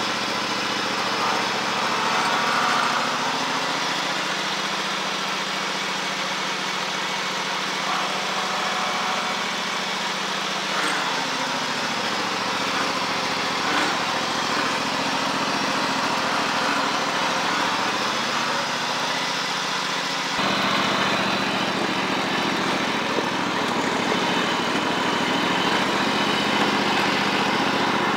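Early-2000s White Cub Cadet garden tractor's engine running steadily, its pitch slowly rising and falling as the freshly refilled Hydro-Gear hydrostatic transmission is worked to purge air from the oil. About two-thirds of the way through, the sound changes abruptly to a steadier, brighter run.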